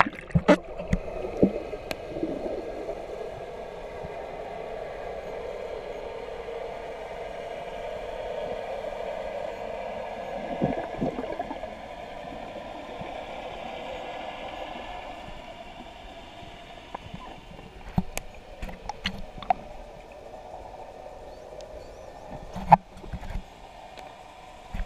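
Muffled underwater sound picked up by a camera in a waterproof housing: a steady dull rush that fades about two-thirds of the way through, with scattered knocks and clicks, the loudest a couple of seconds before the end.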